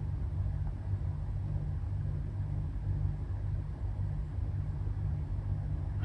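A steady low rumble or hum with faint hiss above it, unchanging throughout.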